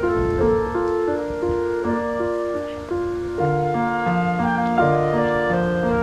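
Instrumental background music: a melody of held notes moving in steps, with lower bass notes joining about three and a half seconds in.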